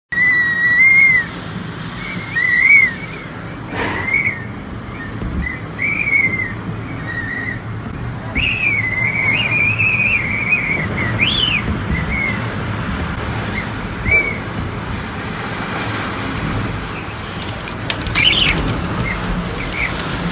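A high, wavering whistle that comes and goes in short bending phrases, over a steady background rush.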